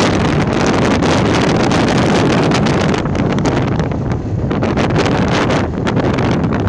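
Heavy wind buffeting the microphone of a phone carried on a moving motorbike: a loud, rough rush with constant crackling gusts, easing slightly about four seconds in.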